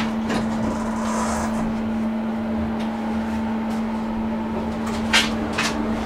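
Steady hum of an elevator running, with two sharp clicks near the end.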